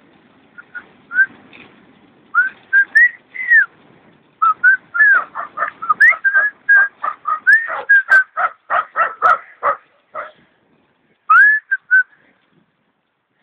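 A person whistling a tune: short, clear notes that slide up and down, in loose phrases, with a quick run of notes in the middle and a last short phrase near the end.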